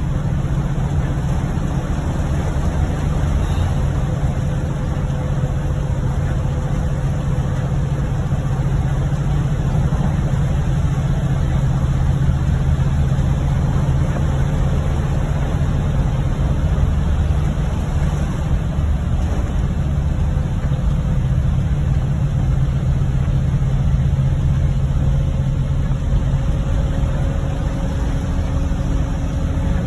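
Steady noise inside a car's cabin while driving on a wet highway in heavy rain: a low engine and road hum under an even wash of tyre spray and rain on the car.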